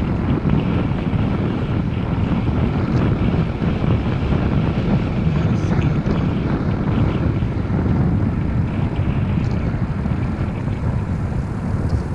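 Wind rushing over the microphone of a helmet camera on a moving bicycle: a steady, deep rushing noise.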